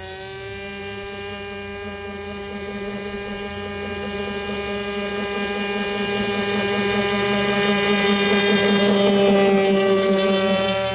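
RC airboat's OS .25 two-stroke glow engine and air propeller running flat out with a steady buzz, growing louder as the boat comes closer and loudest near the end.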